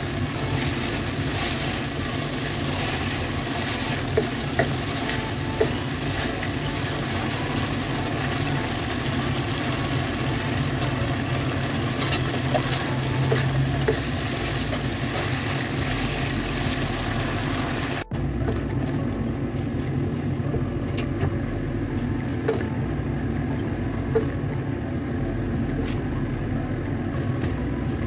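Sweet and sour pork sizzling in a wok as it is stirred with a spatula, with a few sharp knocks of the spatula on the pan, over a steady low hum. After an abrupt break about two-thirds of the way through, the sizzle is fainter.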